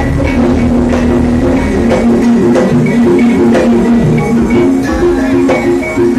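Loud amplified band music with guitar, bass and drums, playing a steady beat with sustained notes.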